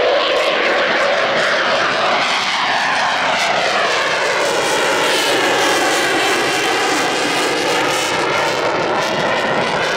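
Boeing F/A-18 Super Hornet's twin GE F414 turbofans at full afterburner during a gear-down takeoff climb: a loud, steady jet roar. A hollow tone sweeps up and down through it as the jet flies past.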